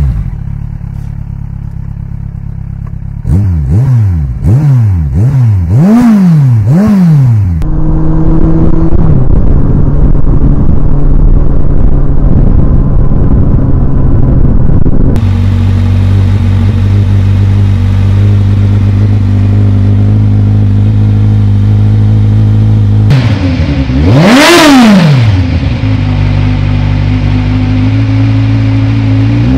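Kawasaki Z1000 SX inline-four running through aftermarket slip-on exhausts. It idles, then takes about five quick throttle blips in a row, runs steadily for several seconds, settles to idle, and takes one more rev near the end.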